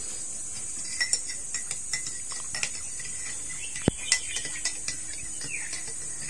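Steady high-pitched drone of insects, with scattered light clicks and taps and a short chirp about five seconds in.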